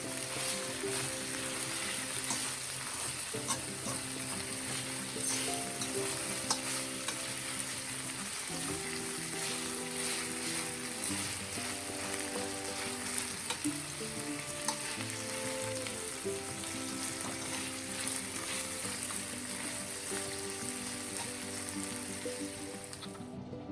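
Food sizzling as it fries in a pan, a steady hiss flecked with short clicks, over quiet background music of held notes. The sizzle cuts off abruptly just before the end.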